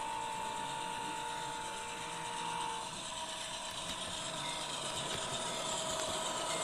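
HO scale model of a GE AC4400CW diesel locomotive running, its sound decoder playing the diesel sound over the whir of its motor and gear drive. A steady tone shifts to a slightly higher pitch about three seconds in.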